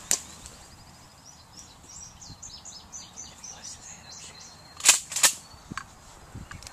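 A shotgun blast about five seconds in, followed about a third of a second later by a second sharp crack. Before it, a songbird sings a quick run of high notes.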